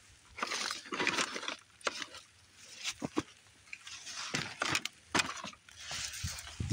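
Leafy berry bushes rustling in several bursts as they are pushed through and brush against the camera, with a few sharp clicks among them.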